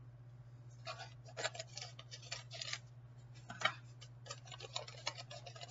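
A wrapped gift being cut open with scissors and unwrapped by hand: a series of short paper crinkles and snips, irregular and about half a second to a second apart.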